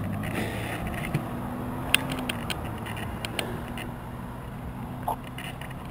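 Steady low hum of nearby car engines and road noise, heard from a road bike's handlebar-mounted camera while riding, with a few light clicks.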